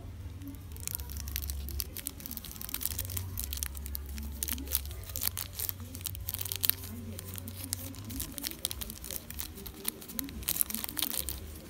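Small clear plastic zip-lock seed bag crinkling and crackling in the fingers as it is squeezed and shaken to sprinkle pansy seeds out, a dense irregular run of crackles starting about a second in.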